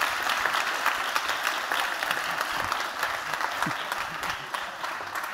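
Audience applauding: dense, steady clapping from a large crowd that begins to die down near the end.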